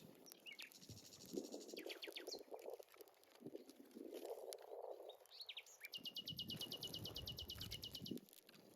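Songbirds calling outdoors: a few quick high chirps, then a rapid trill of evenly repeated notes, about a dozen a second, lasting about two seconds in the second half. Faint low rustling and rumbling sits underneath.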